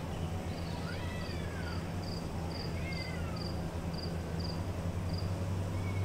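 Steady low hum of a hotel ventilation system, with a cat meowing twice, each call rising then falling in pitch. A thin, high, regular chirping runs through it at about two chirps a second.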